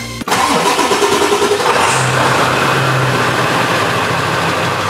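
Ford E350 van's 7.3-litre turbo-diesel V8 running through a newly fitted 4-inch turbo-back exhaust, cutting in suddenly just after the start. It has a slightly rumbly note.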